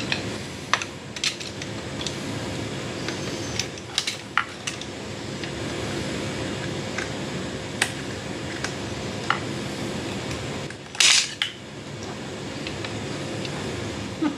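Scattered small metallic clicks and clinks of hands working at a motorcycle's brake pedal and footpeg bracket while the brake light switch spring is hooked back on, over a steady background hum. A louder, brief scraping rustle comes about eleven seconds in.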